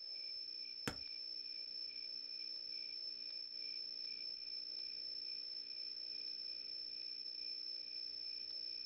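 Crickets chirping steadily: a continuous high trill with a softer pulsing layer beneath it. A single sharp click comes about a second in.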